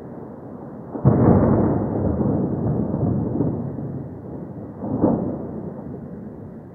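Thunder: a sudden loud clap about a second in that rolls on as a rumble and fades over several seconds, then a second sharp crack about five seconds in that also dies away.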